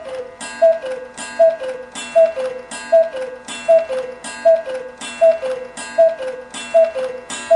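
Clock tick-tock sound effect ticking off the answer time on a quiz question: a steady two-note tick, a higher note dropping to a lower one, about every three quarters of a second.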